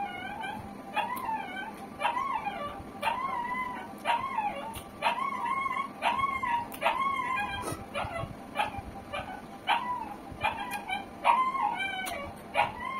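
A dog whining and yelping over and over, about one short high cry a second, each rising and then falling in pitch.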